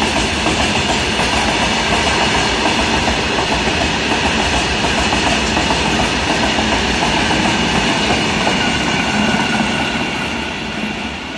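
Freight train of covered goods wagons rolling past: a steady rumble and clatter of wheels on the rails, with a steady high whine over it. The sound fades near the end as the rear of the train goes by.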